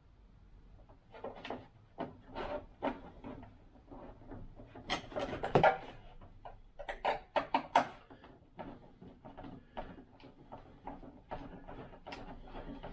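Irregular clicks, taps and knocks from hands working on a 3D-printed plastic model wing. The loudest clatter comes about halfway through, followed by a quick run of sharp clicks.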